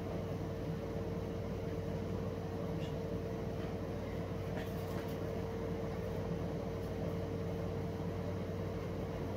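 Steady machine hum: a constant low drone with a steady mid-pitched tone over it, unchanging throughout, with a few faint light ticks.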